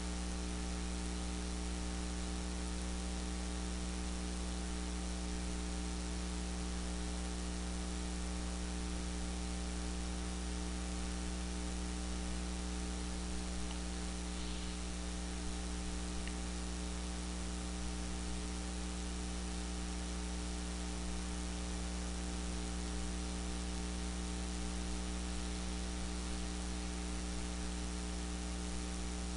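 Steady electrical hum, several low tones at once, under a constant hiss: electrical noise picked up by the recording.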